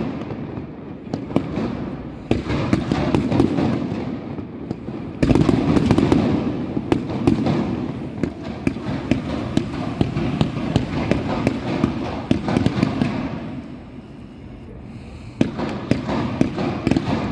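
Fireworks display: a dense, rapid crackle of pops and bangs from low-fired comets and crackling white stars, swelling about two and five seconds in, easing off briefly near the end and picking up again.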